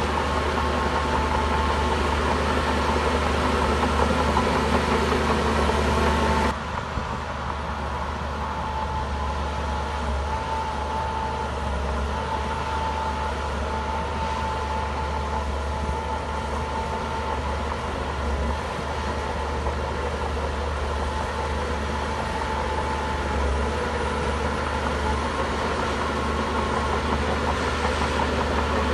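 Heavy diesel engine of a Shantui crawler bulldozer running steadily with a deep hum and a steady whine. About six seconds in the sound cuts abruptly to a slightly quieter, similar machine noise.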